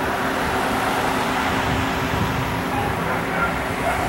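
Steady street traffic noise with the low, even hum of a motor vehicle engine running.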